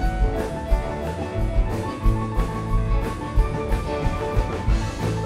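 Live rock band playing an instrumental passage with electric guitars, drum kit and electric piano, over a regular beat.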